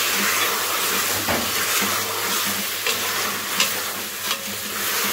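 Chicken and potato pieces sizzling as they are fried (bhuna) with garam masala in a metal pot. A spatula stirs through them, scraping against the pot now and then.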